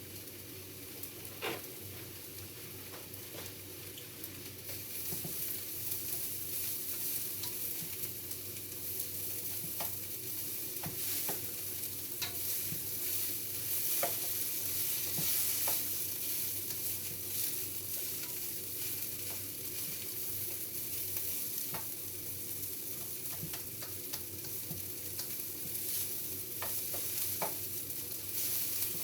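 Food frying in a hot pan, a steady sizzle that grows louder about five seconds in, with scattered light clicks.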